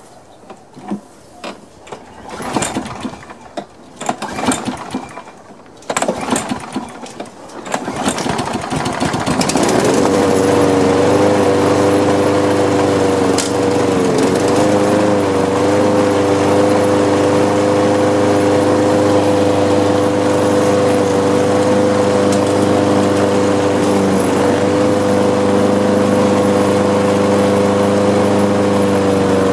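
Craftsman 7 hp walk-behind lawn mower engine being cranked with several uneven strokes over the first eight seconds or so, then catching and running steadily. Its speed sags briefly about fourteen seconds in.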